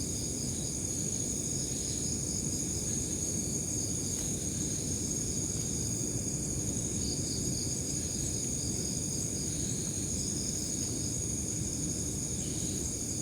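Insect chorus, crickets or similar, with a continuous high buzz and pulsing chirps that come and go, over a low steady rumble of background noise.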